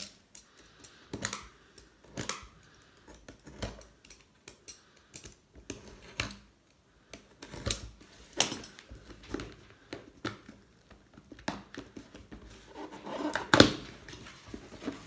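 Packing tape on a cardboard box being slit with a box cutter: a run of short, irregular scrapes and clicks, then a louder rip near the end as the taped cardboard flap is torn up.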